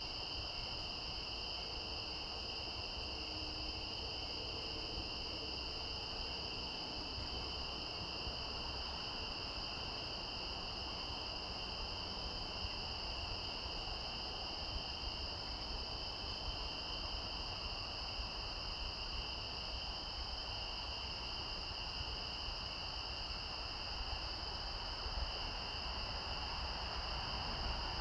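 Steady insect chorus: a continuous high chirring at two pitches over a low even hiss.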